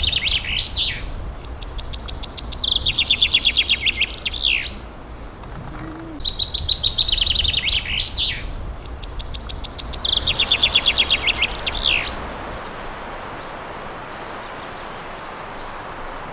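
Male common chaffinch singing: the end of one song, then three full songs a few seconds apart, each a fast run of notes stepping down in pitch and ending in a quick flourish. The singing stops about twelve seconds in, leaving faint background hiss.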